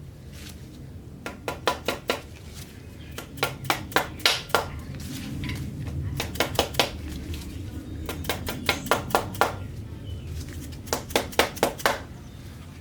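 Main bearing caps being tapped down into their seats on a 351 Windsor block with a mallet: five bursts of quick, light taps, several a second.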